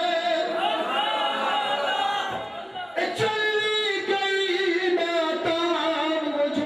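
A man singing devotional verse in long, held, gently wavering notes, with a brief break about two and a half seconds in before the singing resumes.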